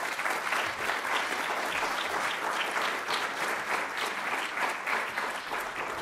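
Audience applauding: many hands clapping in a dense, even patter that begins to die down near the end.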